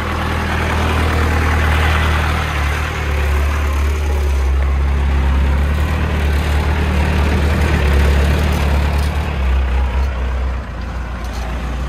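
Engine of a loaded Hoa Mai light dump truck running as it pulls slowly away, a steady low drone that eases off a little near the end.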